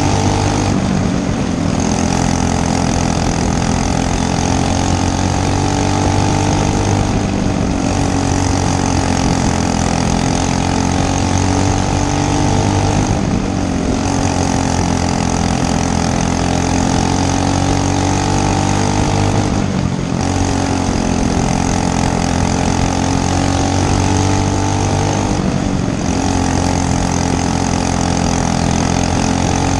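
Racing go-kart engine running hard and steady. Its note drops briefly about every six seconds and then climbs again, as the throttle is eased and reopened through the turns of a dirt oval.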